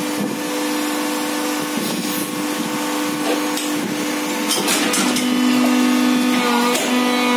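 Plastic injection moulding machine running, its hydraulic power pack giving a steady hum. A few knocks and clatters sound over it, the clearest about four and a half to five seconds in, as the machine's gate and mould are worked.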